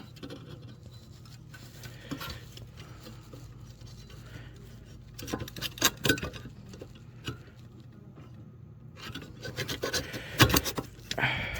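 Plastic fire alarm detector head rubbing and scraping against its mounting base as it is twisted to line up its arrows, with a few sharp clicks; the loudest clicks come about halfway through and near the end.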